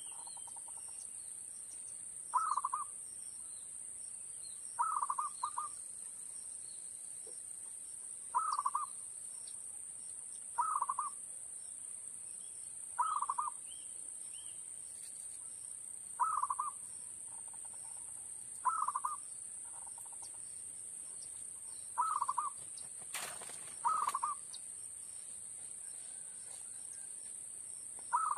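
Zebra dove (perkutut) cooing, a short phrase of quick notes repeated about every two to three seconds, about ten times, over a steady high-pitched whine and faint small-bird chirps. A single sharp click sounds about 23 seconds in.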